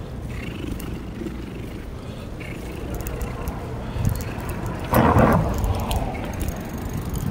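Bicycle riding over pavement: a steady low rumble, with a louder rough rushing noise about five seconds in that fades over a second or so.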